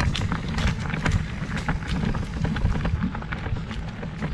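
Mountain bike rolling along with a child seated up front, heard from a camera clamped to the child's handlebars: a steady low rumble of wind and tyres on the microphone, with many irregular sharp clicks and rattles from the bike and mount.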